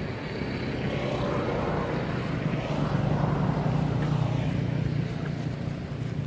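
Low engine drone of a passing motor, swelling to its loudest in the middle and easing off near the end.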